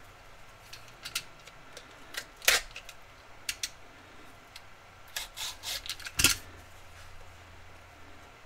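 A small black Panini Noir trading card box being cut and pried open by hand: a run of short scratchy clicks and scrapes of cardboard and wrapping, with two sharper snaps about two and a half and six seconds in.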